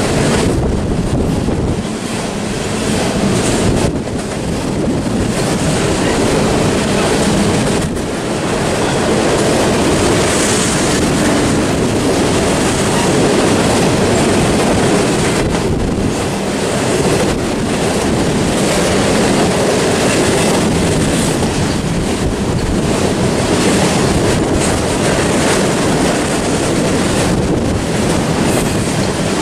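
Freight train of double-stack container cars and empty open hopper cars rolling past below: a loud, steady noise of steel wheels on the rails and the cars running by.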